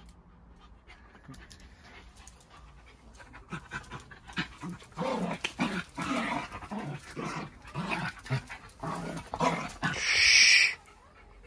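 A Jack Russell terrier makes a rapid run of short panting and vocal sounds, starting about four seconds in. Near the end comes one louder, harsh, hissy sound.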